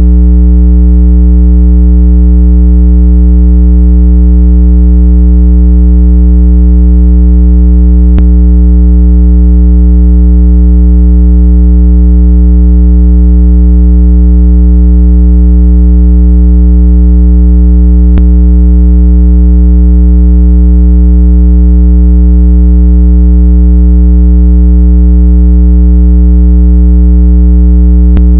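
Steady, loud synthesized low-pitched tone with overtones, a speaker-cleaning sound meant to shake water out of a phone speaker.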